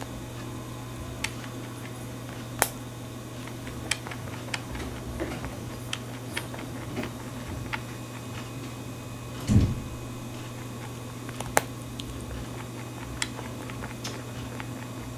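A rabbit crunching and gnawing on an almond: irregular sharp crunches scattered throughout, over a steady low hum, with one louder dull thump about two-thirds of the way in.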